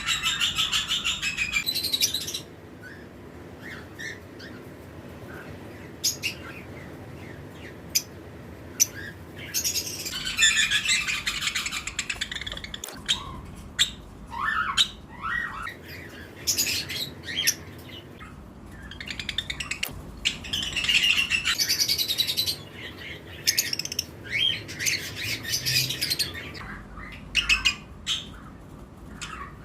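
A colony of lovebirds chirping and squawking, in dense bursts of shrill calls every few seconds with sparser single chirps between.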